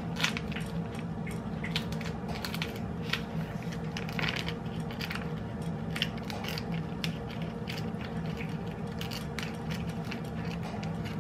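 Irregular crinkling and clicking as a package is handled and pried at, trying to get it open, over a steady low hum.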